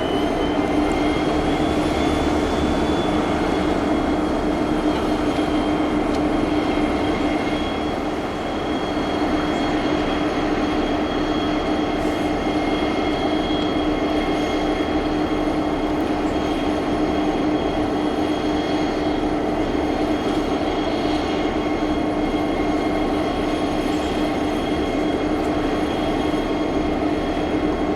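Train running by with a steady rumble of wheels on rails, and a few steady high tones held over it.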